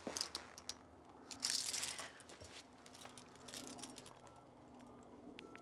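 Quiet handling noises: a few light clicks, then a brief rustle about a second and a half in.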